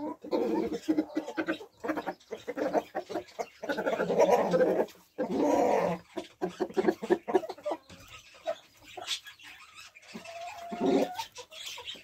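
A flock of hens clucking and calling close by, with a dense run of calls in the first half. The calls thin out later into scattered clucks and sharp clicks, with one more short burst of calls near the end.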